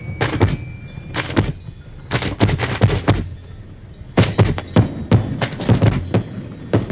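Fireworks going off: irregular clusters of sharp bangs, cracks and thuds, denser in the second half. A faint high thin tone rises slightly and fades out about a second in.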